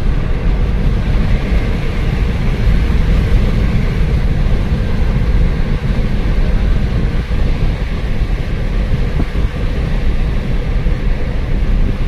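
Car driving along a highway: a steady, loud rumble of road and wind noise, heaviest in the low end, with a faint steady hum.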